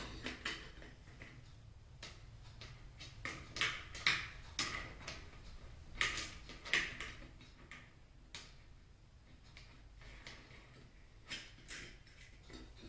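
Scattered light clicks and knocks of a cutoff wheel and its flange nut being handled and fitted onto a cordless angle grinder, with the tool's metal parts tapping on the table.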